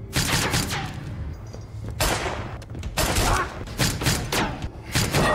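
Gunfire in a film shootout: several volleys of shots come in bursts roughly a second apart.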